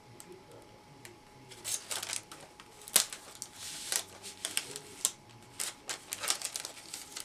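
Plastic wrapping film crinkling, with sharp clicks and taps, as a film-wrapped box is handled and shifted on a hand heat sealer; the loudest click comes about three seconds in.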